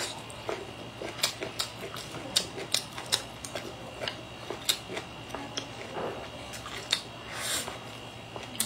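Close-miked chewing of a mouthful of broccoli: irregular crisp clicks and crunches, with a short breathy sound a little before the end.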